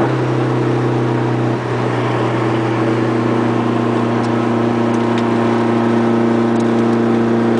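Dodge SRT-4's turbocharged four-cylinder engine idling with a steady, droning exhaust note. The owner takes these strange exhaust sounds for the sign of a failing 16G turbocharger with extreme shaft play.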